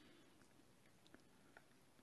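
Near silence: room tone with three faint clicks.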